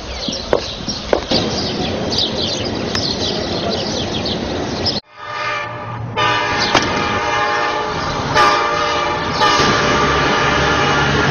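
A steady noisy rumble with scattered chirps and clicks, cut off abruptly about five seconds in. It is followed by a long, steady chord of several held tones over a low hum, like a horn.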